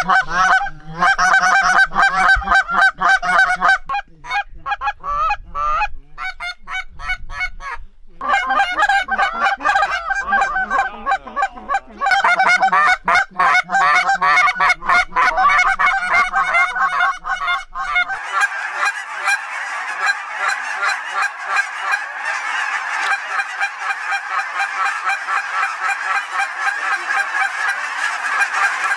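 Hand-held goose calls blown in quick runs of short honks and clucks. About two-thirds of the way through it changes to a large flock of wild geese honking overhead, a dense, continuous clamour of many overlapping calls.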